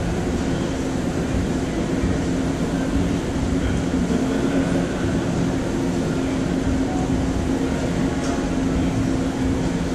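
Steady machine rumble with a constant low hum underneath, with no breaks or distinct knocks.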